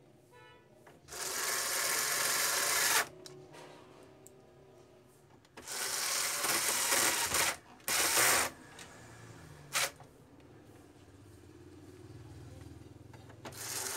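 Several short bursts of a small machine running, each one to two seconds long, with quiet gaps between.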